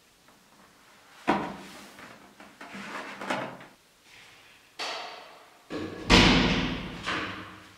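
Wooden bathroom door with a frosted-glass panel being worked: a series of clunks and knocks from its handle, latch and frame, the loudest about six seconds in, echoing in the tiled room.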